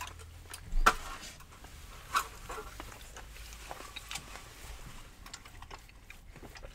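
Eating and drink-handling noises: scattered small clicks and rustles of cups, straw and food, with two sharp knocks about one and two seconds in.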